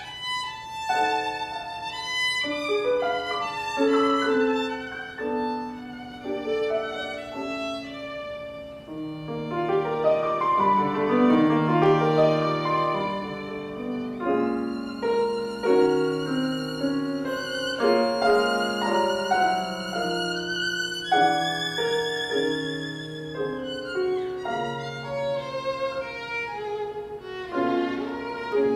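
Violin and grand piano playing together: a bowed violin melody with vibrato over piano accompaniment, growing louder about a third of the way in.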